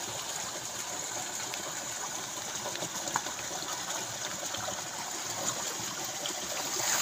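Water pouring steadily out of a small culvert into a shallow irrigation ditch, an even, unbroken gush of running water.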